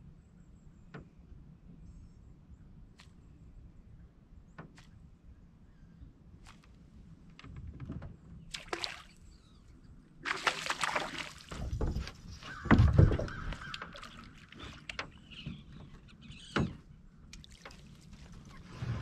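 A few faint ticks, then from about ten seconds in a hooked crappie splashing at the surface beside the boat as it is reeled in, with a couple of heavy low thumps soon after.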